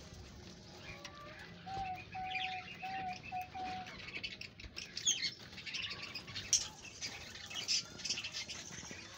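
Birds calling: a run of five short, even whistled notes about two seconds in, with scattered chirps. Small crisp crunching clicks from about halfway on, from rabbits chewing cracked corn and a cabbage leaf.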